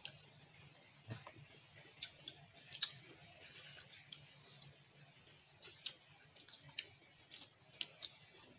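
Faint, irregular clicks and small cracks of seafood shells being broken and picked apart with fingers and teeth while eating by hand.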